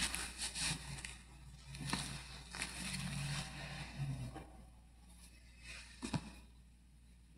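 Soft clicks, scrapes and rustles of objects being handled on an altar, with a faint low hum over the first four seconds and a single sharp knock about six seconds in.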